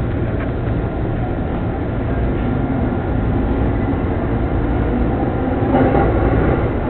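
Electric commuter train running on the track, heard from inside the front car behind the driver's cab: a steady rumble of wheels and traction motors that grows slightly louder as the train pulls away from the platform and gathers speed. It gets louder briefly near the end.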